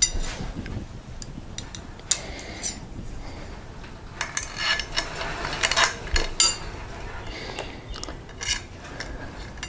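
Aluminium antenna parts of an Arrow three-element 2 m Yagi being handled: the boom set down and arrow-shaft elements fitted into it, giving scattered metallic clicks, taps and rattles. The loudest clatter comes about four to six and a half seconds in.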